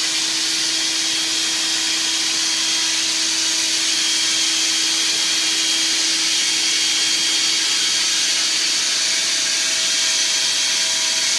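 Stick vacuum cleaner running steadily, a constant rushing hiss with a thin motor whine. Its low hum fades about eight seconds in as a higher tone comes up.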